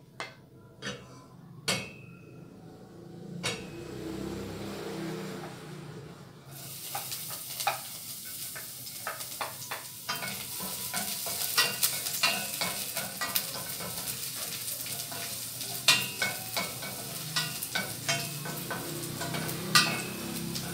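Garlic, onion and ginger sizzling as they are sautéed in a stainless steel frying pan, stirred with a wooden spatula that scrapes and taps against the pan. The sizzle starts suddenly about six seconds in, after a few sharp clicks and knocks.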